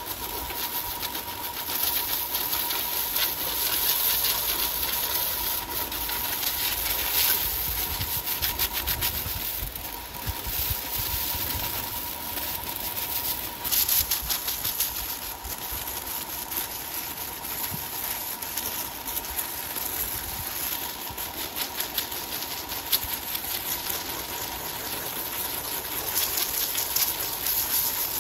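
Large powered wood saw running, with a steady whine over a fast, even mechanical rattle.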